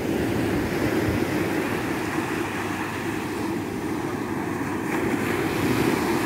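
Small waves breaking and washing up a sandy shore, a steady rush of surf, with wind on the microphone; it swells a little near the end as a wave breaks.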